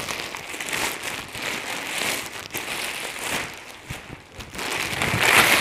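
A plastic courier mailer bag rustling and crinkling as it is handled and a jacket in its plastic wrap is pulled out of it. The crinkling is louder near the end.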